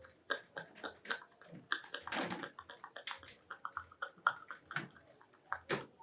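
Wet kissing and lip-smacking noises made with a little water in the mouth: a foley effect imitating love-making, an irregular run of short smacks and clicks.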